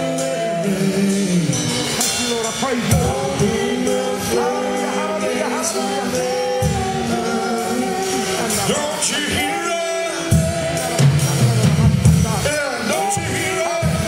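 Live gospel praise-band music: voices singing long held notes over electric bass, keyboard and drums.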